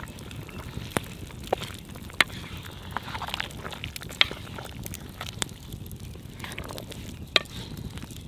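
Wooden spatula stirring a simmering beef, potato and pepper stew in a kazan over a wood fire, over a steady low crackle and sizzle, with about six sharp clicks scattered through.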